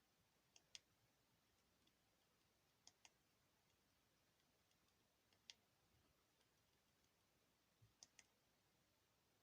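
Faint, sharp clicks of phone keypad buttons being pressed over near silence: a quick double click, another double, a single click, then a last double.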